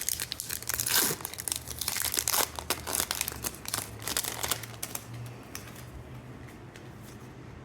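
A trading-card pack wrapper being torn open and crinkled. The crackling is dense for the first few seconds and thins out toward the end.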